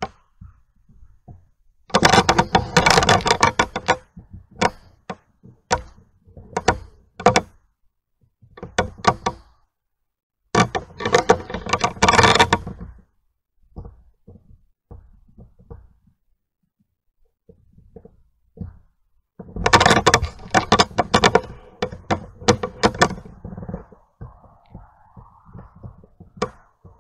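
Footsteps crunching over dry twigs and leaf litter: three bursts of rapid crackling about two seconds each, with single snaps and knocks between them.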